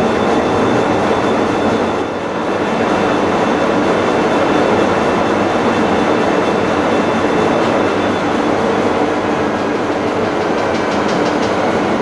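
AKAI front-loading washing machine spinning its drum at speed: a loud, steady rush and rumble with a thin high motor whine on top.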